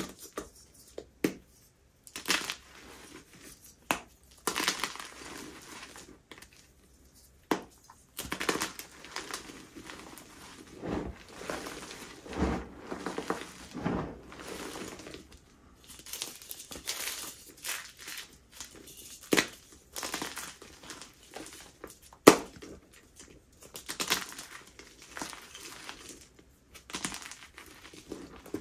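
Blocks of dyed gym chalk being crushed: crunchy, flaky crumbling with sharp cracks now and then as pieces break, the loudest crack about three-quarters of the way through.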